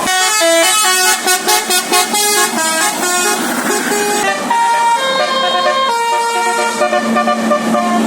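Basuri 'telolet' musical air horn on a bus playing a tune: a quick run of short notes, then longer held notes from about four seconds in.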